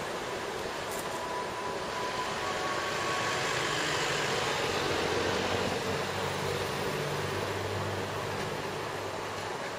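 Steady outdoor background noise with a low engine drone that swells from a few seconds in and fades near the end, as from a passing motor vehicle or train.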